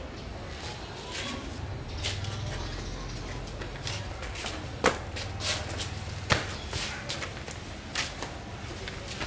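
Scattered taps and scuffs on concrete from flip-flop footsteps and a small toy ball being kicked about, with two sharper taps about five and six seconds in. A low steady hum runs underneath.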